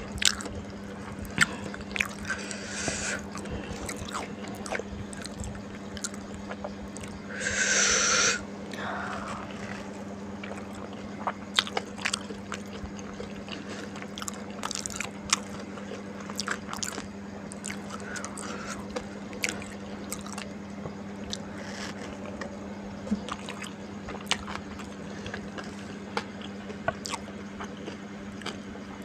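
Close-up eating sounds: chewing and crunching of fried wonton skins and fried noodles, many small crisp clicks and crunches over a steady low hum. About seven seconds in, a louder hiss lasts about a second.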